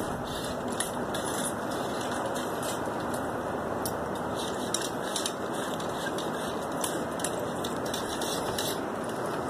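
Steel ramrods scraping and clicking in the barrels of flintlock muzzle-loading muskets as a squad rams cartridges home: scattered light metallic clicks over a steady hiss.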